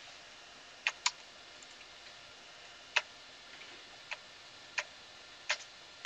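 Computer keyboard keys pressed one at a time, six sharp separate clicks at irregular intervals about a second apart, over a faint steady hiss.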